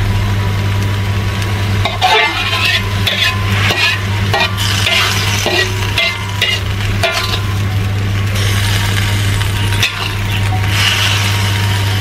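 Metal ladle and spatula scraping and clinking in an aluminium wok as stir-fried water spinach is scooped out into a bowl, over the sizzle of the hot cooking liquid. The scraping comes in clusters of short strokes, with a pause in the middle, over a steady low hum.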